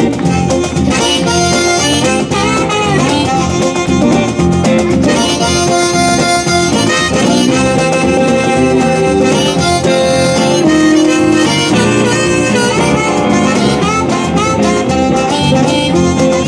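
Harmonica solo, played from a neck rack, with held and sliding notes over strummed acoustic guitar: an instrumental break in a folk-blues song.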